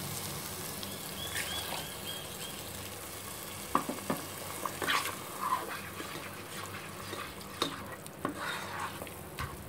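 Masala gravy sizzling in a pan while a thick onion-and-curd paste is stirred into it with a slotted metal ladle. Now and then the ladle clicks against the pan.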